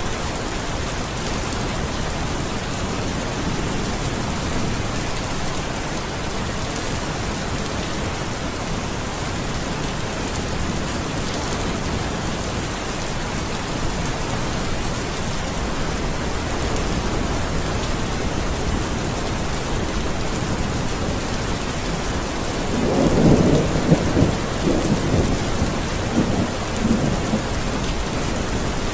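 Steady heavy rain falling, with a roll of thunder rumbling in about three quarters of the way through and rumbling again near the end.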